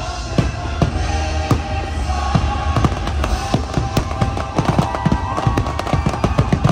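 Aerial fireworks bursting in quick succession over the show's music soundtrack, the bangs coming faster and closer together from about halfway through.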